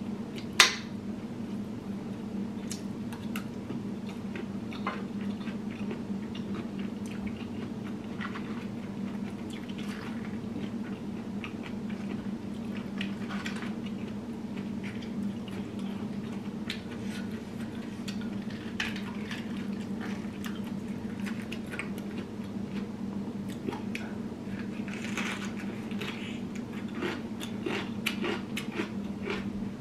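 A person chewing and biting boiled vegetables, with many small wet clicks and crunches, over a steady low hum. About half a second in there is one sharp clink of a fork against a plate, the loudest sound.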